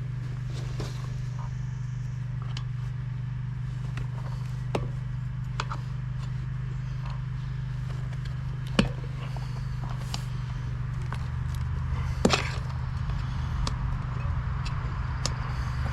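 Plastic tire lever prying a stiff downhill-casing mountain bike tire bead over the rim: scattered clicks and knocks, with two sharper snaps past the middle and about three-quarters through, over a steady low hum.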